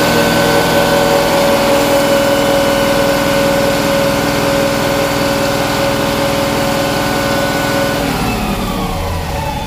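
Mahindra Blazo BS4 truck's diesel engine held at raised revs with a steady engine note, falling back toward idle about eight seconds in. Boost pressure does not build despite the revs: intake pressure stays under 200 hPa instead of climbing toward 1000.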